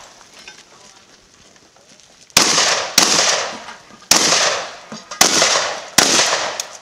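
Pump-action shotgun fired five times: a quiet first two seconds or so, then two quick shots, then three more spaced about a second apart, each blast ringing out briefly.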